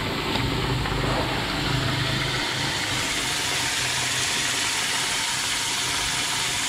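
A steady motor hum from the ring-polishing machines, which gives way about two and a half seconds in to the steady hiss of a cleaning spray jet as a ring is held in it.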